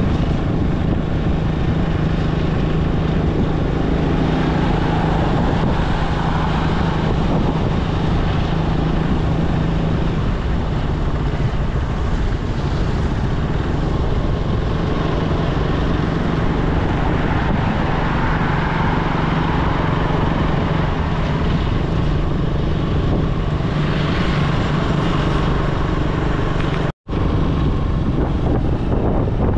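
Motor vehicle running at a steady speed: a constant engine drone under a rushing noise, which cuts out for an instant near the end.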